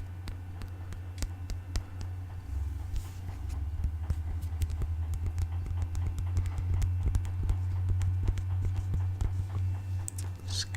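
ASMR tapping and scratching close to the microphone: many quick, light, irregular taps that grow denser from about halfway, over a steady low hum.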